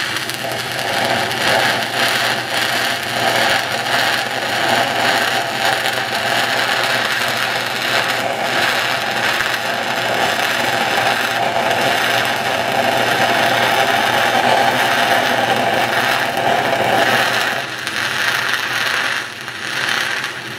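Stick-welding arc of a 6010 electrode running an uphill root pass on pipe, a dense, steady crackling that carries on unbroken and stops right at the end as the rod is pulled away.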